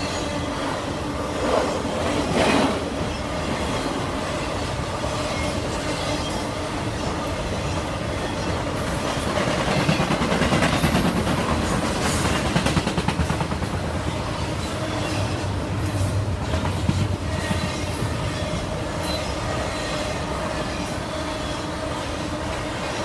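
Freight train cars rolling past: a steady rumble of steel wheels on rail, with clusters of clicks as the wheels cross rail joints and a thin, steady wheel squeal underneath.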